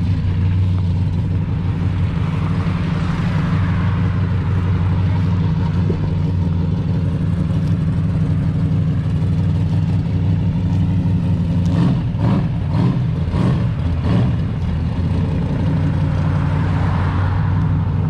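Chevrolet Monte Carlo engine idling steadily with a low, even drone. The sound turns briefly uneven about twelve seconds in.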